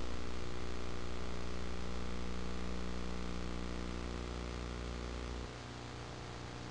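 Steady electrical hum with many overtones under a constant hiss: the noise of a transfer of footage that has no soundtrack. About five and a half seconds in, the lowest part of the hum drops away and the level dips slightly.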